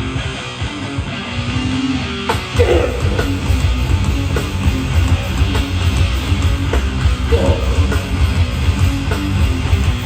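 Hardcore band playing live with distorted electric guitar. About two seconds in, the music gets much heavier in the low end, with a pounding beat.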